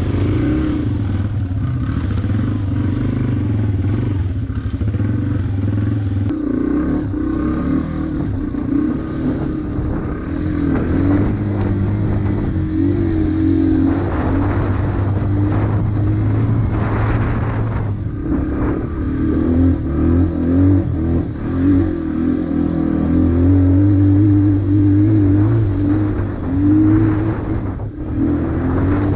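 Yamaha AG200 single-cylinder four-stroke trail bike engine running as it is ridden over a rough dirt trail, heard from the rider's seat, its note rising and falling with the throttle.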